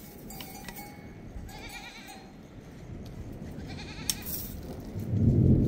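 Goats bleating: two wavering calls about two seconds apart, with the steady ring of a livestock bell early on. Near the end a gust of wind rumbles on the microphone.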